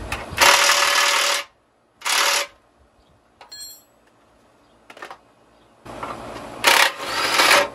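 Cordless impact wrench hammering at bolts on a car's front suspension crossmember in three bursts: about a second, a short one, then another near the end. A light metal clink in between.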